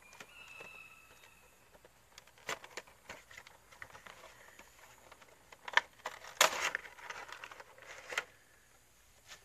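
Cardboard toy box being opened and its clear plastic insert slid out: scattered taps, rustles and crinkles, the loudest a burst of crinkling about six and a half seconds in.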